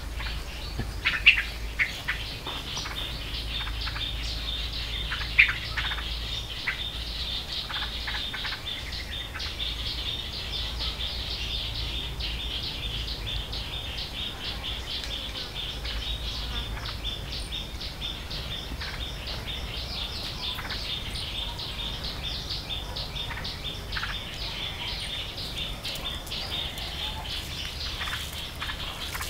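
Forest ambience: a steady, rapid, high-pitched chirping chorus of wildlife, with a few louder sharp bird chirps in the first six seconds.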